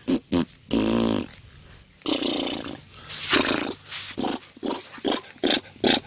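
Boston Terrier puppies making play noises: a drawn-out whine about a second in, rougher growling sounds in the middle, and a quick run of short sharp yips near the end.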